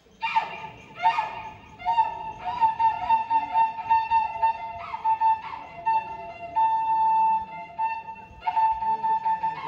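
A flute melody starts suddenly about a quarter of a second in, opened by two sharp struck attacks, then long held notes that mostly stay on one pitch and dip briefly to a lower note now and then.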